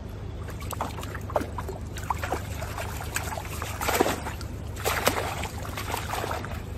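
Water splashing and dripping in irregular bursts as a mesh keepnet full of barbel is handled in the river and a fish is pulled from it, the loudest splashes about four and five seconds in. A steady low rush of flowing river runs underneath.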